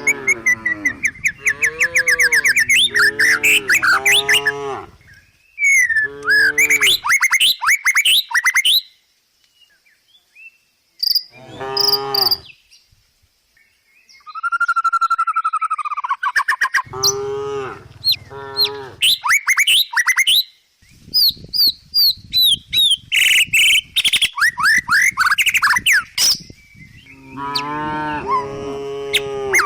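Cows mooing repeatedly, a run of loud drawn-out calls broken by short pauses, with birds chirping now and then.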